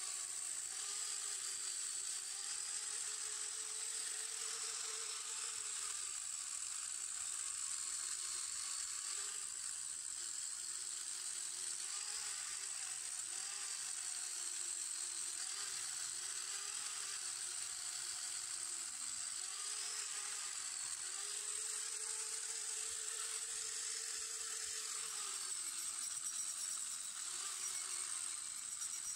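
Small corded angle grinder with an abrasive disc running steadily against a chrome-plated steel luggage rack, taking rust off it. Its motor whine wavers up and down in pitch as the disc is pressed into the metal and eased off.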